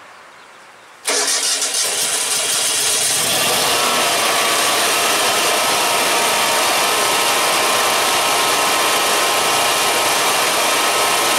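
Generac Guardian 12 kW standby generator's two-cylinder engine starting on the manual switch: it starts suddenly about a second in, cranks briefly, then catches and runs steadily. This is its first start after an oil change and new spark plugs.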